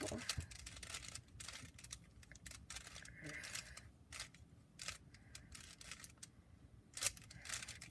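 Plastic Rubik's Cube layers being turned by hand: a run of irregular, quick clicks and clacks.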